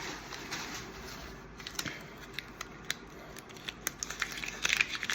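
Packaged action figures being handled: scattered small clicks and crinkles of plastic and cardboard packaging, getting busier near the end.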